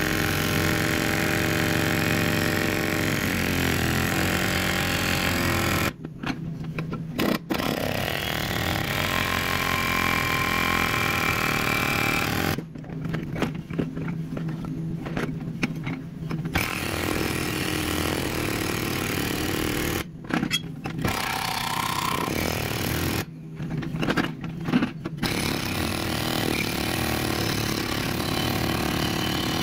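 Kubota mini excavator's diesel engine running steadily while it works at breaking a concrete block. The sound dips sharply several times.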